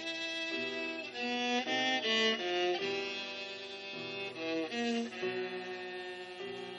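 Viola playing a melody of held notes, moving from one pitch to the next.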